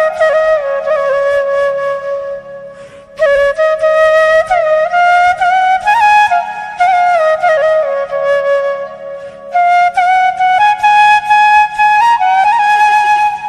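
Bamboo flute (bashi) playing a slow melody with gliding, ornamented notes, with a short breath pause about three seconds in.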